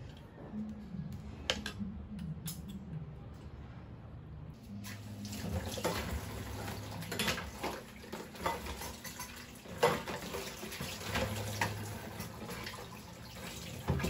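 A few light clicks of a fork on a plate. Then about five seconds in, a kitchen tap starts running into a sink as dishes are washed, with clinks of dishes and cutlery over the running water.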